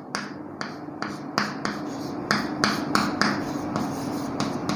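Chalk writing on a chalkboard: a quick series of short taps and scrapes, about three a second, as each letter is stroked on.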